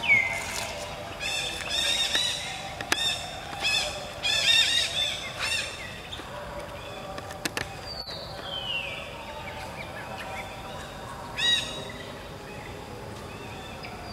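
Wild birds calling: a long whistle that falls in pitch, heard at the start and again about eight seconds in, between bursts of quick, clipped chirping notes.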